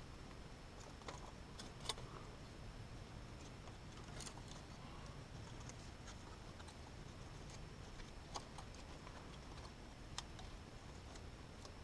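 Dry dead sticks clicking and knocking against each other as they are worked and wedged into a woven stick cage trap. Faint scattered clicks, a few sharper ones, over a low steady background.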